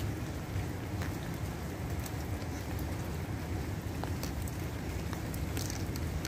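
Steady rain falling, with scattered sharp drop ticks over a low rumbling hiss.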